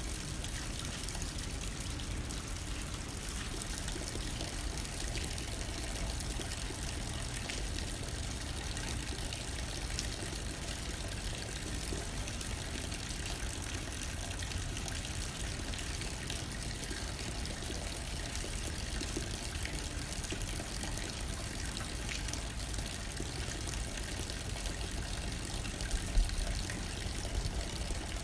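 Steady rain falling on a window, with light wind blowing underneath; a brief low thump about 26 seconds in.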